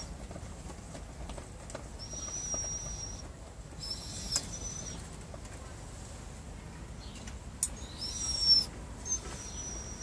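A dog whining: a string of thin, high-pitched whines of about a second each, four or five in a row.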